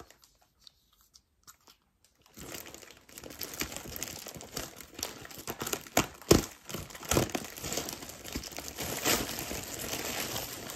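Plastic packaging crinkling and rustling as a stuck item is worked out of it by hand, starting about two seconds in, with frequent sharp crackles.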